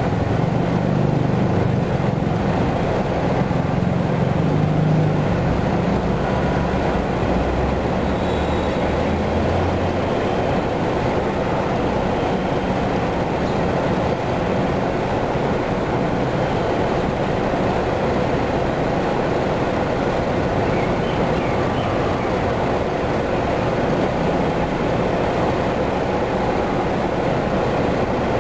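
Steady rumble of vehicle engines and traffic, heavier and deeper for the first ten seconds or so, then evening out.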